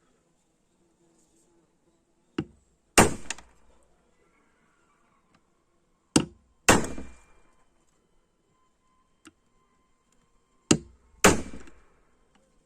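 Three pairs of hard strikes, each a lighter knock followed about half a second later by a heavier blow that trails off briefly.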